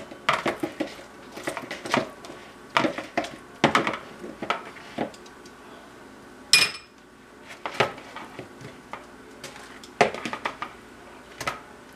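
Metal kitchen tongs clattering and tapping against a bowl and a wire cooling rack on a baking sheet as chicken drumsticks are tossed in sauce. Irregular clicks and knocks, with one sharper ringing clink about six and a half seconds in.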